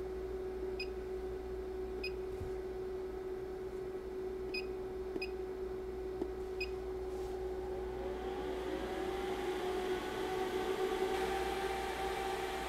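Touchscreen keypad of a CI Systems SR800 black body controller beeping five times as a new 12 °C set point is keyed in, over a steady hum from the equipment. About two-thirds of the way in, a whir builds and slowly rises in pitch as the black body starts cooling toward the new set point.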